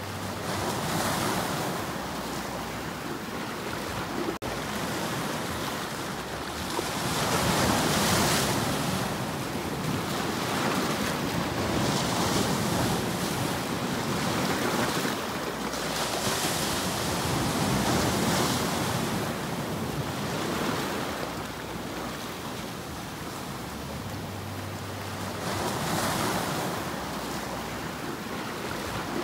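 Sea surf breaking and washing over rocks along a shoreline, the rush of water swelling and easing every few seconds as each wave comes in.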